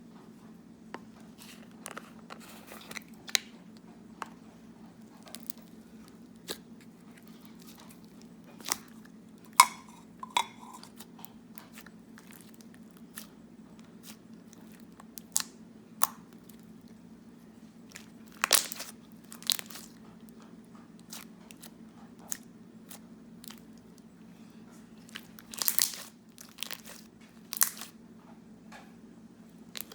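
Foam bead slime with a cereal base being squeezed and worked by hand, giving irregular crunches and crackles as the beads pop, over a faint steady hum.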